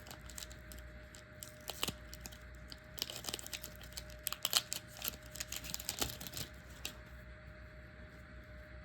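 Foil wrapper of a Panini Donruss trading card pack being torn open and crinkled, with cards handled, in a run of sharp crackles and rustles that dies down about seven seconds in.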